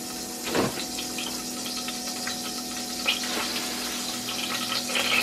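Butter melting and sizzling in a small saucepan, with scattered small crackles over a steady low hum.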